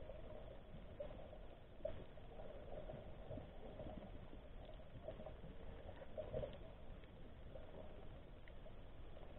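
Faint underwater ambient sound picked up through a camera's waterproof housing: a steady low hum with a wavering mid-pitched drone and scattered soft clicks and crackles.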